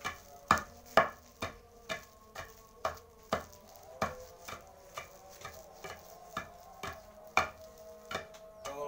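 Long wooden pestle pounding fish bait in a stone mortar, a steady rhythm of thuds about two a second.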